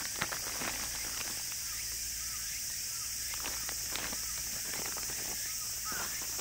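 Outdoor ambience: scattered light clicks and rustles, like handling gear or footsteps, over a steady high hiss. A few short chirps come in a small run about halfway through, and again near the end.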